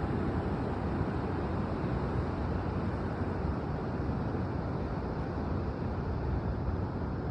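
Steady, low rushing noise of Pacific Ocean surf and wind, with no distinct breaks or single waves standing out.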